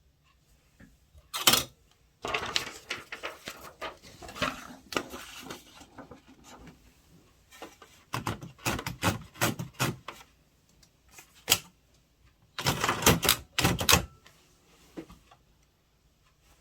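Keys of a Kong Byung-woo Korean typewriter (Gong Han-young 201) being struck in quick runs of clacks, with short pauses between the runs.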